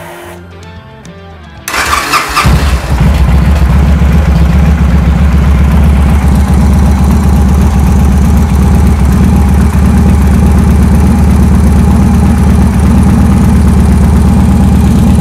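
Victory Vegas V-twin motorcycle engine started on the electric starter about two seconds in, catching almost at once and settling into a steady idle at around 1,000 rpm.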